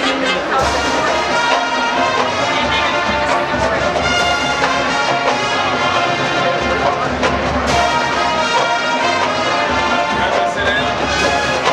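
College marching band playing, its brass section holding sustained chords over low brass and percussion. A few sharp, loud accents break in across the passage.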